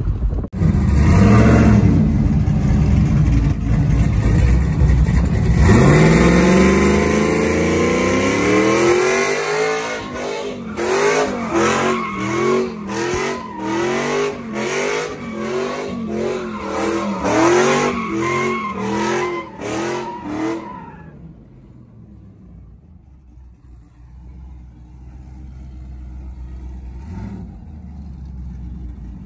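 Pickup truck engine revving hard while doing donuts with the rear tires spinning: one long rising rev, then about a dozen rises and falls roughly once a second, dying away to a low steady sound about two-thirds of the way through.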